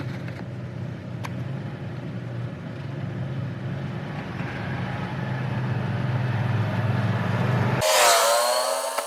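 Chevrolet NBS Silverado V8 pickup running, its engine and road noise growing louder over several seconds as it gains speed. Near the end it cuts off abruptly, replaced by a short, different sound that falls in pitch.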